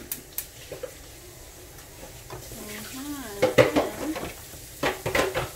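Kitchen handling sounds: a few sharp clinks of pots and lids near the start, then a large kitchen knife cutting raw chicken breast on a cutting board, with knocks of the blade on the board. A short vocal sound, unlike words, comes in the middle among the louder strokes.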